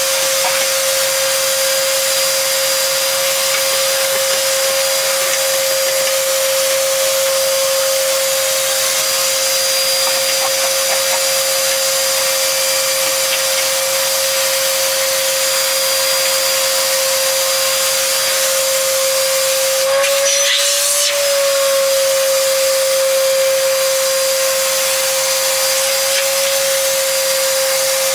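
A small motor running steadily with a high, even hum at one pitch, which rises briefly about twenty seconds in.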